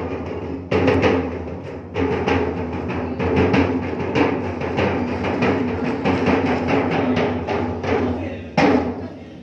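Marching tenor drums (a set of five white-shelled drums) struck rapidly with sticks: fast, dense patterns of hits moving around the drums, with a loud accent hit about a second before the end.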